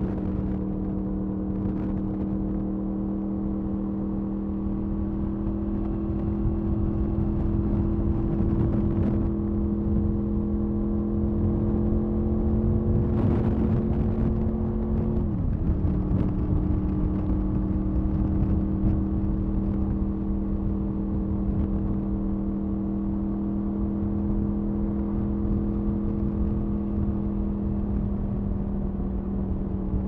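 Exhaust note of a 2007 Honda VFR800A Interceptor's V4 engine under way, holding a steady pitch that slowly creeps up, then dips sharply about fifteen seconds in before settling back to a steady cruise. Low wind rumble on the microphone underneath.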